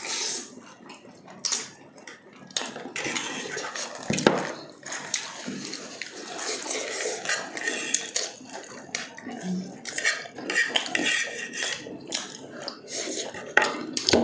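Close-up eating sounds: crispy fried chicken being bitten and chewed and spaghetti eaten from a fork, with clinks of cutlery and dishes, heard as many short sharp crackles and clicks.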